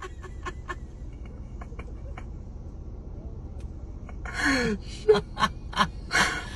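A steady low rumble heard from inside a car, with faint scattered clicks over the first two seconds. About four seconds in, a person gasps and lets out short breathy exclamations and laughs in amazement, the loudest sounds here.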